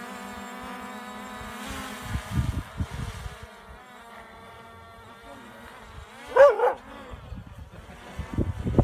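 Quadcopter drone hovering low, its propellers giving a steady buzzing whine. About six and a half seconds in, a dog gives one short, loud bark at it. Low rumbling noise comes in around two to three seconds in and again near the end.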